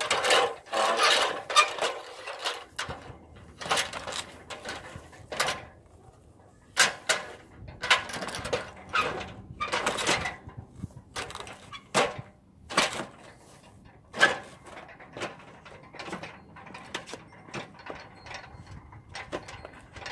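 Metal ladder being shifted and set against the house siding: a run of irregular clanks, knocks and scrapes, densest in the first couple of seconds, then the footfalls of someone climbing it near the end.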